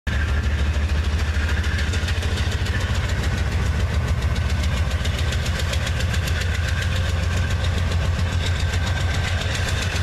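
Diesel freight locomotive passing close by under load, its engine running with a steady low rumble and a fast, even beat.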